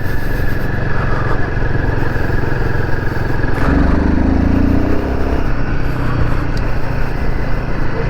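Royal Enfield Himalayan 450's single-cylinder engine running under way in performance mode, with wind noise on the microphone. About three and a half seconds in, the engine note rises for a couple of seconds as the bike accelerates, then settles back.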